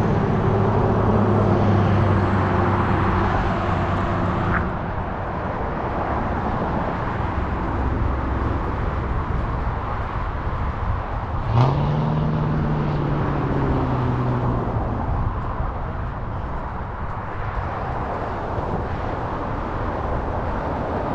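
Road traffic going past, with the hum of car engines under a steady road noise; a louder vehicle comes up suddenly about halfway through and fades over a few seconds.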